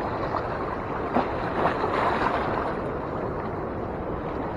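Steady rush of fast-moving river water, with a slightly louder swell about a second in and again around two seconds in.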